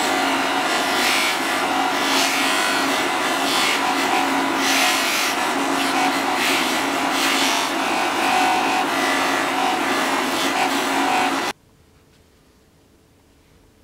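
Bench grinder motor running with a steady hum while a wooden sword handle is pressed against its spinning wheel, giving a rasping rub that swells and fades as the handle is turned. The sound cuts off abruptly about eleven and a half seconds in, leaving only faint room tone.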